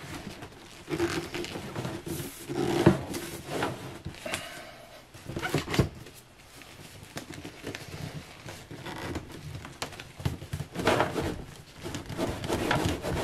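Irregular scraping, creaking and knocking as gloved hands work a battery's strapped cell pack and its fiberboard liner loose inside the plastic case.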